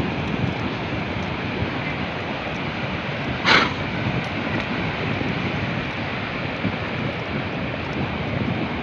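Wind buffeting the microphone over a steady outdoor rush, with one short, sharp burst of noise about three and a half seconds in.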